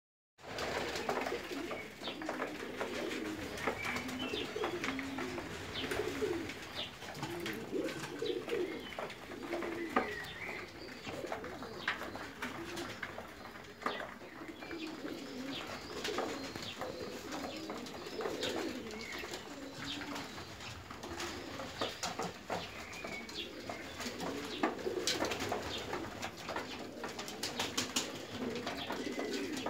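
A flock of domestic pigeons cooing continuously, with scattered sharp clicks and taps from birds pecking at a feeding trough and a quick run of clicks near the end.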